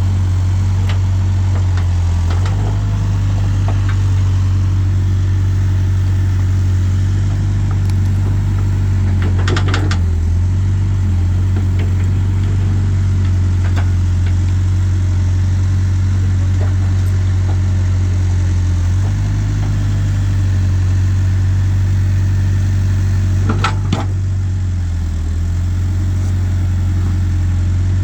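Backhoe loader's diesel engine running steadily while digging, its pitch dipping briefly under load a few times, with short metallic knocks about ten seconds in and again near the end.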